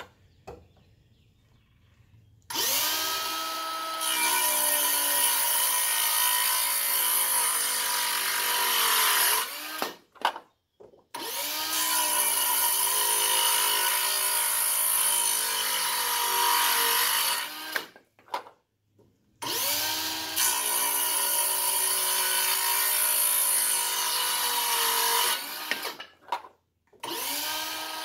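Bauer 20-volt cordless circular saw with a 24-tooth framing blade cutting through wood in four passes of several seconds each, with short gaps between them. Each pass opens with the motor's pitch dipping and settling as the blade bites, then a steady cutting sound.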